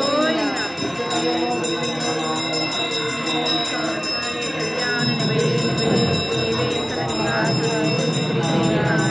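A small temple hand bell jangling steadily over devotional music, the ringing that goes with aarti as a camphor lamp is waved before the deity.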